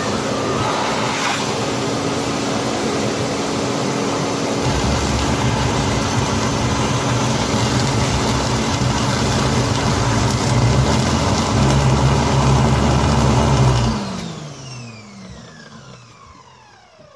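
Ridgid wet/dry shop vacuum's brushed motor, freshly repaired with a new armature resistance and adjusted carbon brushes, running steadily at full speed; a deeper rumble joins about five seconds in. About fourteen seconds in it is switched off and the motor winds down with a falling whine.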